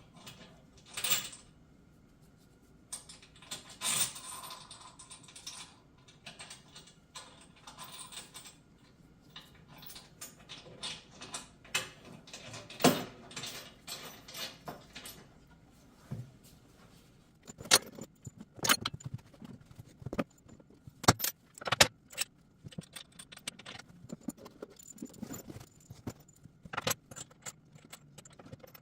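Irregular metallic clinks, clanks and scrapes of a 19 mm wrench working nuts, lock washers and bolts while a steel bolt-on hook bar is fastened to a tractor loader bucket, with several sharp knocks standing out in the second half.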